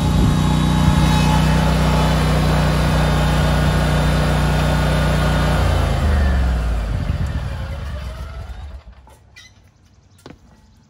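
Scag Tiger Cat II zero-turn mower's engine running steadily as the mower drives up, then shut off about six seconds in, its sound falling in pitch and dying away within a few seconds. A few light clicks follow in the quiet.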